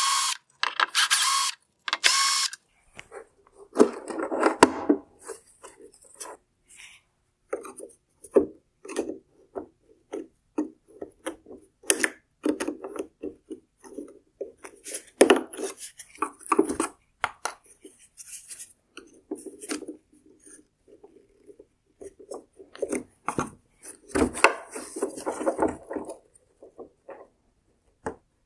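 A cordless drill-driver runs in three short bursts in the first couple of seconds, backing out the screws that hold a xenon ballast to a plastic headlight housing. After that come scattered clicks, rubs and scrapes of metal on plastic as the ballast is pulled from the housing and its wiring connector handled, with a louder patch of scraping near the end.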